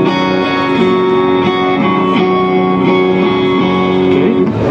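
Electric guitar played through an Avid Eleven Rack's Vox AC30-style amp model, with chords ringing out and changing every second or so while speaker-cabinet emulations are compared.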